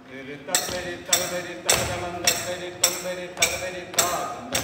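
Chavittu Nadakam stage music: ringing metallic percussion strikes on a steady beat, a little under two a second, over sustained held notes.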